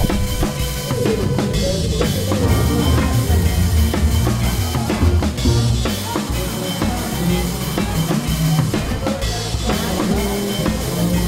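Background rock music with a driving drum kit.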